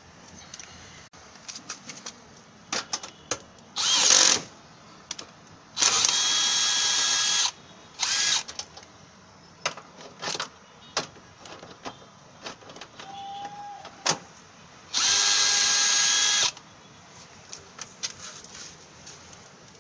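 A power tool runs in several short bursts, the longest about a second and a half, spinning out the front mounting bolts of a car's driver seat. Scattered clicks and knocks of the socket and bolts come between the bursts.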